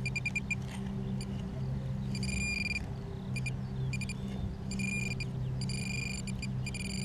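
Metal-detecting pinpointer beeping as it is worked around the hole for the buried target: runs of rapid high beeps and several held, steady tones about a second long, a sign that it is close to the metal. A low steady hum runs underneath.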